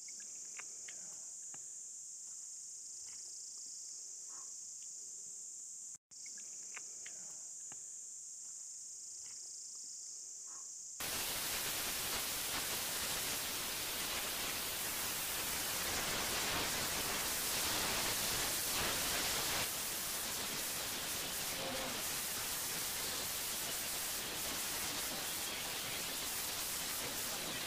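Steady high-pitched insect drone, cut off for an instant about six seconds in. About eleven seconds in, a louder, even hiss of noise takes over.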